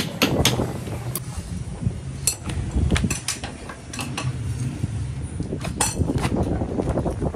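Irregular sharp metal clinks and knocks, a dozen or so, as metal parts are handled or tapped, over a steady low rumble.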